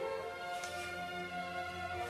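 Soft background score music with sustained held notes.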